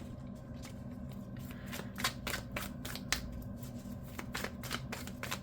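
A deck of tarot cards being shuffled and handled, a run of quick, irregular card snaps and slaps.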